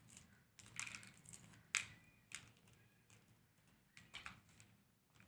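Faint, scattered light clicks and taps of small objects being handled as black pepper seeds are arranged on the hand.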